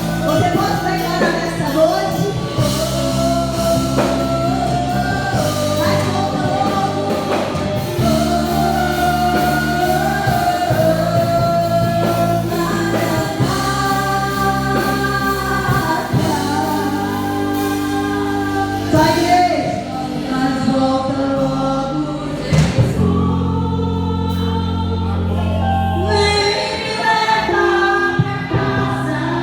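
Gospel worship music: a band playing sustained chords with bass while singers sing a melody.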